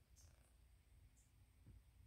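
Near silence: room tone, with a few faint ticks.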